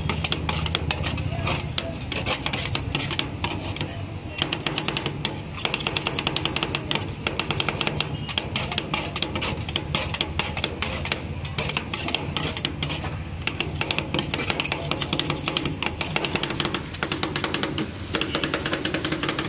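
Two steel spatulas rapidly chopping and tapping on the stainless-steel cold plate of a rolled ice cream counter, working fruit into the freezing cream base. It is a fast run of metallic clicks, several a second, with a few short breaks, over a low steady hum.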